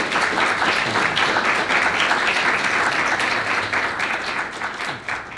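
Audience applauding, dense steady clapping that tapers off near the end.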